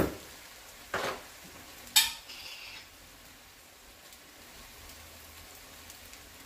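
A few sharp knocks and clinks of a glass jar of tomato sauce being handled, the loudest about two seconds in with a brief ring after it, over a faint sizzle from chicken cooking in a deep stainless pan.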